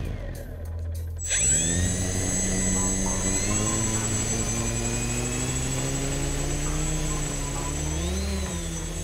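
Homemade F450 quadcopter's four 1000KV brushless motors spinning up on the ground, starting about a second in. The whine jumps up in pitch and then keeps rising slowly, with a brief throttle surge near the end.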